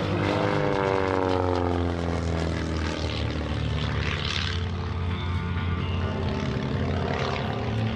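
Pitts aerobatic biplane's propeller engine running, its pitch sliding down over the first three seconds, with public-address music in the background.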